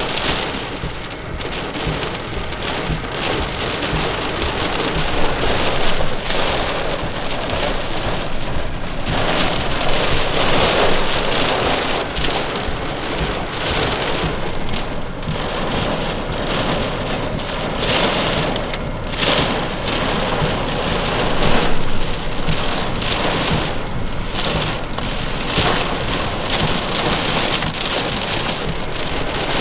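Heavy wind-driven thunderstorm rain pelting a car, so hard it is starting to sound like hail. The downpour swells and eases with the gusts.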